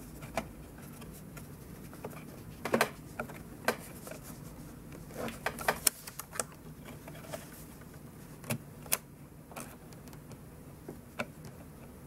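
Scattered light clicks and knocks of DDR3 SO-DIMM RAM modules being pushed into the memory slots of a 2009 iMac and of fingers on its aluminium case, over a low steady hum.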